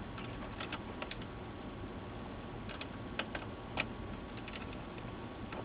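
Small plastic connector plugs clicking and tapping as the backlight connectors are pushed into their sockets on an LCD monitor's board: a dozen or so faint, irregular clicks over a steady low hiss.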